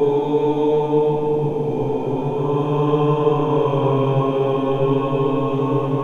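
The humanoid creature Alatay howling: one long, low, droning wail held at a steady pitch, like a chanted drone.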